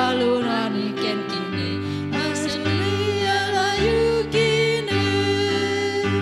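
Two women singing a Christian praise hymn in the Bidayuh language, over instrumental backing music.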